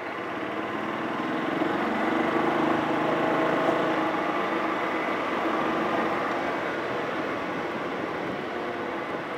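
Engine of the vehicle carrying the camera running as it drives along the street, with road and wind noise; it gets a little louder about two seconds in.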